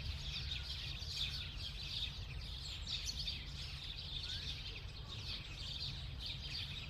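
A dense chorus of many small birds chirping and singing at once, with no let-up, over a low steady rumble.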